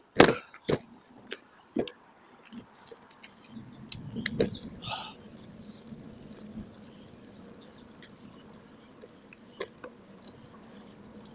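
Bicycle ride played at double speed: a few sharp knocks and rattles in the first couple of seconds, then steady rolling noise with short high chirps of birdsong.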